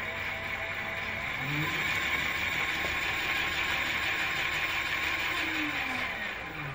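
Electric motorbike's rear wheel spinning with a steady whirring, hissing noise and a faint whine that rises as it speeds up and falls as it slows near the end. This is the rear-wheel noise the bike normally made.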